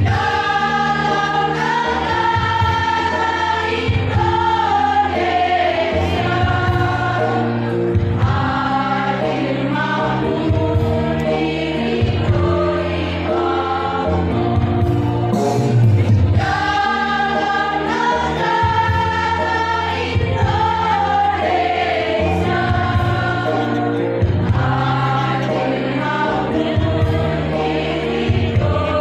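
Women's choir singing a hymn together, a melody of held notes.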